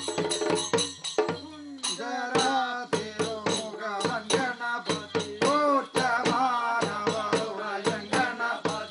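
Tholpavakoothu performance music: a man's voice chanting in long, bending notes over a fast rhythm of sharp percussion strikes. The chanting comes in about two seconds in.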